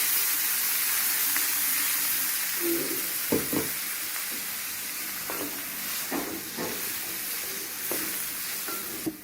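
Freshly blended wet spice paste for rendang sizzling as it fries in hot oil, with a few short scrapes of stirring. The sizzle slowly weakens and drops away sharply just before the end.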